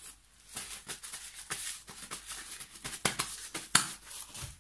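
Gloved hands rustling and rubbing a paper towel around an upturned paint cup on a canvas: a quick string of short, scratchy crinkles, busiest and sharpest about three to four seconds in.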